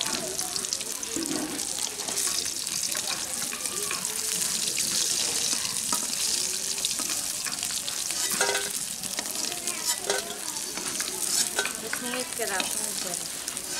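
Pieces of rohu fish sizzling as they deep-fry in hot oil in a metal kadai, a steady hiss. A metal spatula scrapes and knocks against the pan a few times as the pieces are turned and lifted out.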